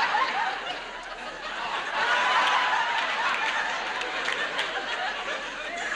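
Studio audience laughing: a big laugh that eases about a second in, swells again about two seconds in, then slowly dies down.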